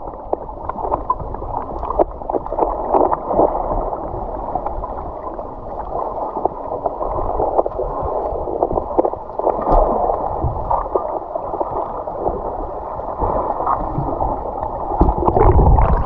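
Muffled gurgling and bubbling of creek water heard from below the surface, with small knocks scattered through it and a louder low rush near the end.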